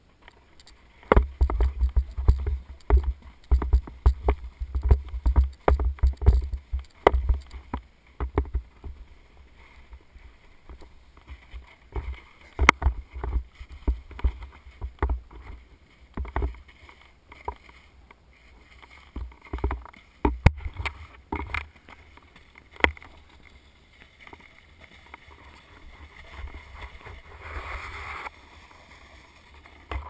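Snowboard riding over bumpy packed snow: irregular knocks, clicks and low thumps as the board and the worn camera jolt, with the scrape of the board on the snow. The knocking is busiest in the first several seconds and again around twenty seconds in, and thins out to a softer hiss near the end.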